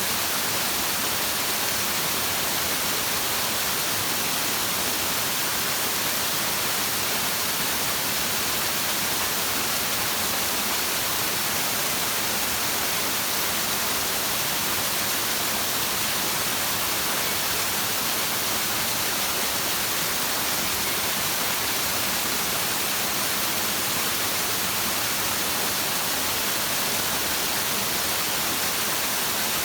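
Flowing stream, a steady even rushing hiss with no breaks or changes.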